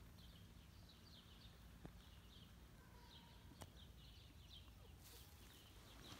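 Faint outdoor quiet with small birds chirping repeatedly in the background, short high chirps in quick runs, and a couple of soft clicks.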